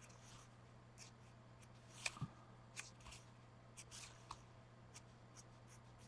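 Faint, scattered light taps, clicks and scrapes of art materials being handled at a desk, the sharpest click about two seconds in, over a low steady electrical hum.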